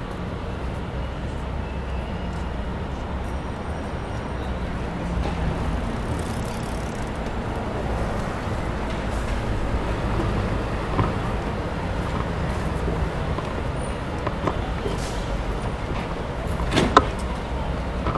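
Steady street-traffic noise and low road rumble heard from a moving bicycle, with one sharp knock near the end.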